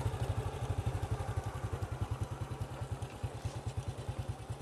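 Small motorbike engine running at low speed with an even, rapid low putter, growing a little quieter in the second half.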